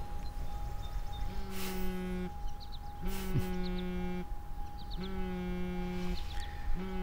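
A low, steady electronic tone with overtones sounds four times, each about a second long, repeating roughly every two seconds over a faint constant high hum.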